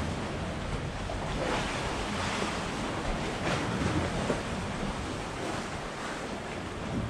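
Sea waves washing in a fishing harbour, with wind rumbling on the microphone.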